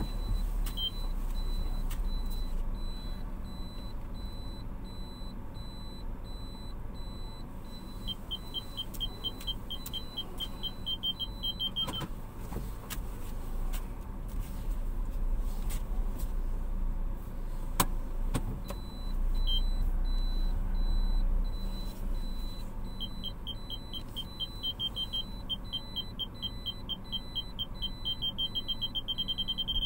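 A car's parking sensor beeping in quick short pips while parking, in two spells; in the second, the pips come faster and merge into one continuous tone near the end, the warning that an obstacle is very close. Under it the car's engine runs with a low steady hum.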